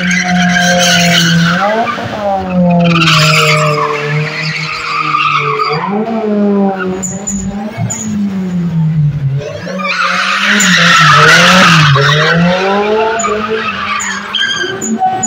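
Nissan Silvia S14 drifting: the engine revs up and down again and again while the tyres screech in long bursts, loudest about ten to twelve seconds in.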